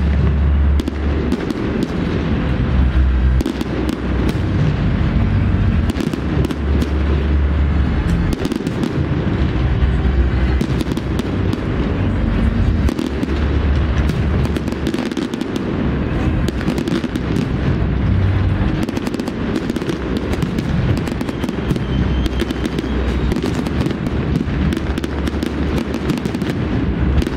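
Fireworks display going off in a dense barrage: many sharp bangs and crackles a second, overlapping, over a continuous deep rumble of booming shells.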